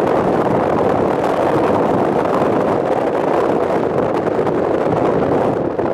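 Wind on the microphone: a steady, loud rushing noise.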